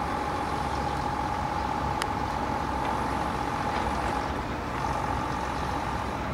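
Small open-top double-deck electric tram running slowly along its track: a steady whine over a low rumble, the whine dropping out briefly past the middle, with a single click about two seconds in.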